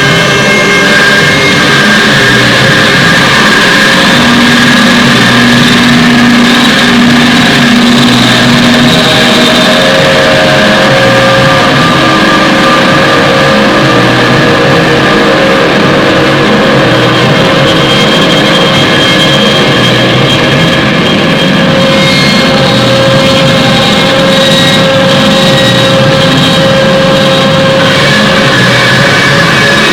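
A loud, steady, dense drone of layered sustained tones over a noisy haze, with individual tones fading in and out every few seconds.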